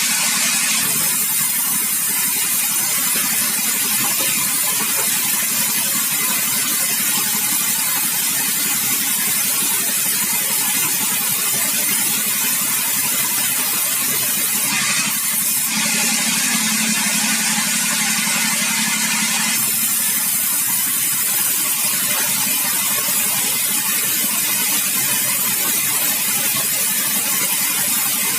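Sawmill machinery running steadily: a loud, even mechanical noise with a strong hiss. A lower hum swells for a few seconds a little past the middle.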